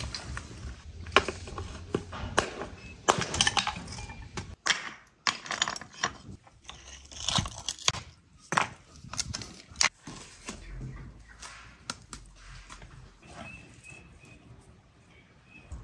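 Flat stones being handled and set in mortar: a series of sharp, irregular clacks and knocks of stone on stone, with scraping between them, thinning out in the second half.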